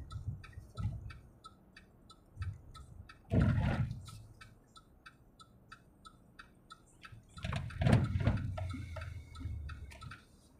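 Car turn-signal indicator ticking steadily, about three clicks a second, heard inside the car's cabin. Two louder low rumbles break in, about three and a half and eight seconds in.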